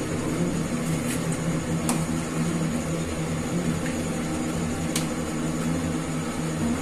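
A pot of water at a rolling boil on the stove: a steady low hum and rush, with a few faint clicks.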